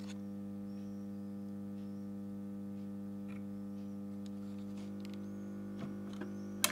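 Steady mains hum from a Bambino record player playing a flexible sound postcard, with a few faint clicks from the groove before the music. A sharper click comes near the end.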